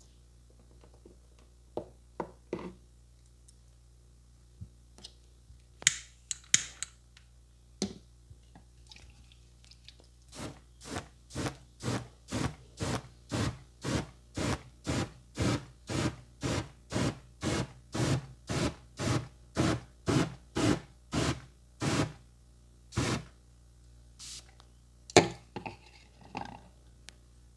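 A steady run of short rubbing or scraping strokes on skin, about two to three a second for roughly eleven seconds, from a barber's hands working over a customer's face or head. Before and after come scattered light clicks and taps, and one sharp click near the end.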